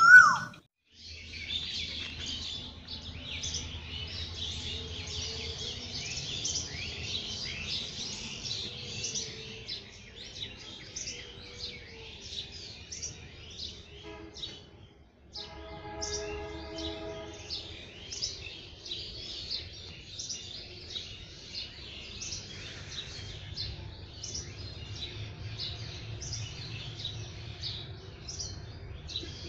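Many birds chirping continuously over a steady low hum. About halfway through, a steady pitched tone with several overtones sounds for about two seconds.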